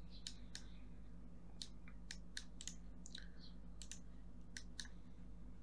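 Scattered computer clicks, about a dozen short sharp clicks at uneven intervals, from mouse and keyboard use, over a faint steady low electrical hum.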